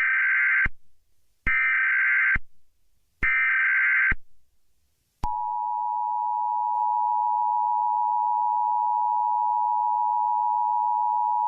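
Emergency Alert System broadcast tones: three short bursts of SAME header data, each just under a second, then about five seconds in the steady two-tone attention signal starts and holds.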